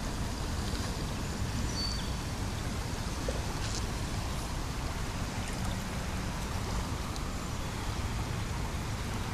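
Creek water running steadily in an even rushing hiss, with a low rumble underneath.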